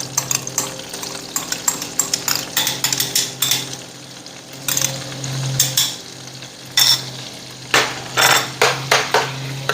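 Garlic frying in melted butter and olive oil in a pan, while a utensil stirs it, clicking and scraping against the pan many times, louder near the end. A steady low hum runs underneath.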